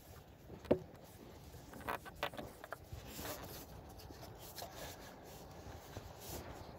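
Faint handling noises of a hand rubbing against a rubber hose and the plastic air box in a car's engine bay, with one sharp knock just under a second in and a few light clicks around two seconds in.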